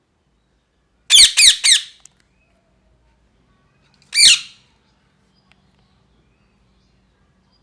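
Ringneck parrot squawking: a quick run of four short, shrill calls about a second in, then a single call about three seconds later, each sweeping down in pitch.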